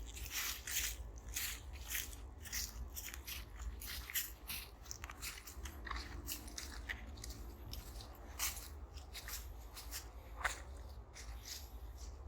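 Footsteps crunching on dry leaf litter along a woodland trail, an irregular run of short crackly steps a few times a second.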